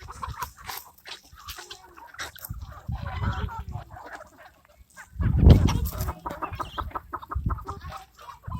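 Country chickens clucking, many short calls scattered throughout, with a low rumble about halfway through as the loudest moment.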